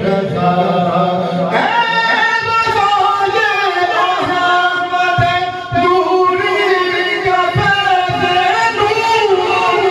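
A man singing a naat, an Urdu devotional song, into a microphone, with long held, bending notes. A new, higher phrase starts about one and a half seconds in.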